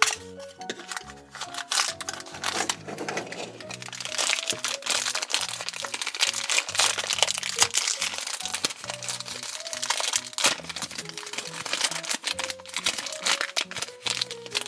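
A black blind-bag wrapper crinkling as it is handled and pulled open by hand, a dense irregular crackle, over background music with held notes.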